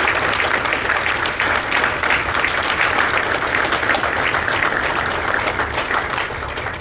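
Audience applauding: a dense patter of many hands clapping that starts to die down near the end.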